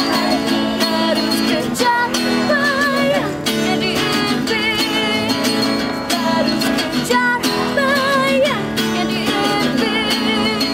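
Music: strummed and plucked acoustic guitar, with a voice singing long wavering notes.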